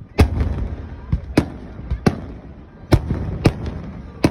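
Aerial fireworks shells bursting overhead: about six loud, sharp bangs in four seconds, with smaller pops in between.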